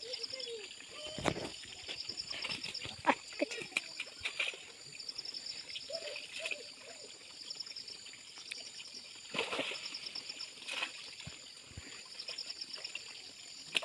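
Muddy pond water splashing and sloshing as a man wades through it and sweeps a landing net, in irregular bursts. A high pulsed trill recurs now and then in the background.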